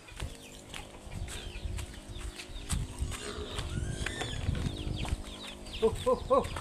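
Farmyard chickens clucking and chirping amid scattered knocks and rustling, with three short quick calls near the end.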